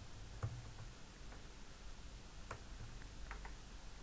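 Computer keyboard keys being typed: a few faint, irregular clicks.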